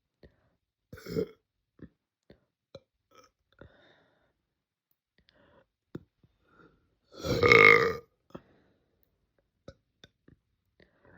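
A girl burping: one long, loud burp lasting nearly a second, about seven seconds in. A shorter, quieter sound comes about a second in, with small clicks scattered between.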